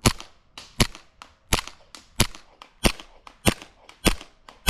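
Airsoft pistol being fired in a steady string, about seven shots at roughly three every two seconds. Each sharp pop is followed by a fainter click.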